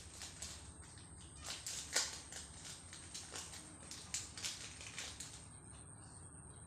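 Packaging crinkling and rustling as it is handled and opened: a quick run of crackles, loudest about two seconds in, dying away after about five seconds.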